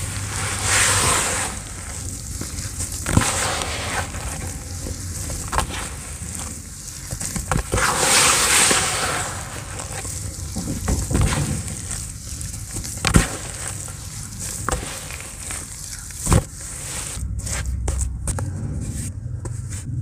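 Hands squeezing and crumbling damp cement in a plastic tub: gritty crackling and rustling, louder about a second in and again about eight seconds in, with a few sharp clicks as lumps break apart.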